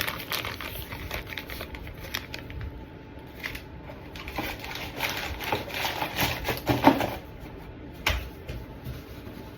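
Plastic bag of cornstarch being handled, with crinkling and crackling that grows busier about five seconds in. A sharp knock comes about eight seconds in.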